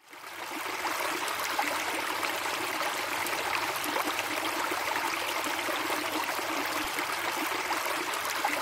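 Flowing stream water running steadily with an even rushing hiss, fading in over the first second.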